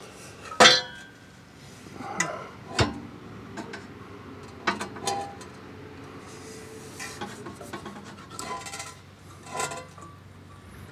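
Irregular metallic clinks, knocks and rattles as steel exhaust pipe parts and tools are handled during installation, with the sharpest knocks about a second in and near three seconds in.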